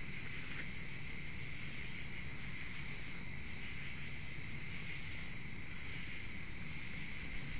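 Steady, unbroken chorus of night insects such as crickets, over a constant low rumbling hiss from the webcam's microphone.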